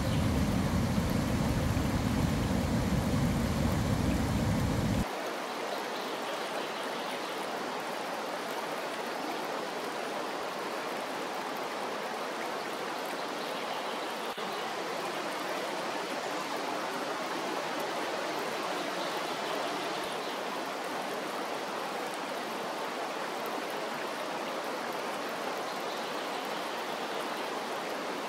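Steady rush of a river flowing over rapids. For about the first five seconds a louder low rumble lies under it, stopping abruptly.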